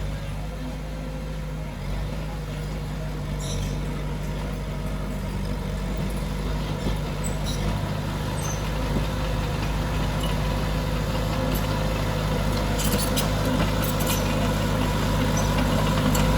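Heavy diesel engine of earthmoving machinery running steadily, growing slightly louder, with a few short clicks near the end.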